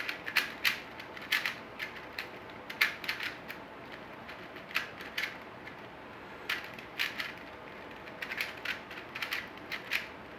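Plastic twisty puzzle cube being turned fast by hand: its layers click and clack in quick irregular runs with short pauses between them.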